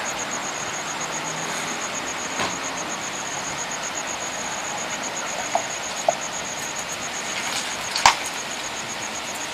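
Steady street background noise, an even hiss, with a faint high pulsing tone throughout and a few short, faint knocks scattered through it.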